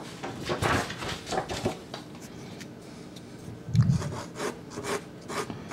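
A Sennelier soft pastel stick rubbing and scraping across Sennelier La Carte pastel card in a run of short strokes, which thin out after about two seconds.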